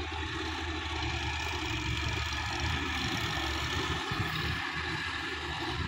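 Sonalika DI-50 RX tractor's diesel engine running steadily as it pulls an implement through a wet field, a constant low hum.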